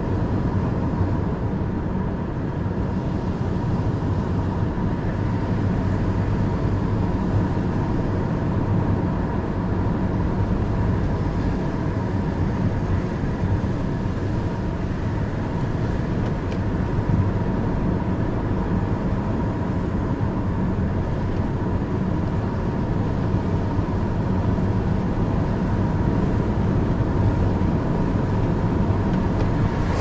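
Steady road and engine noise inside a moving car's cabin, with the tyres running on wet asphalt and a thin steady tone underneath.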